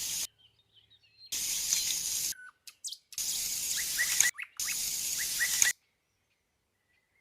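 Water gushing and splashing in about four separate spells of roughly a second each, every one cut off abruptly, with small birds chirping briefly over and between them.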